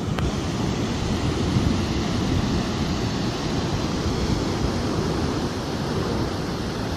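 Ocean surf on a beach: a steady rush of breaking waves, swelling slightly about a second and a half in.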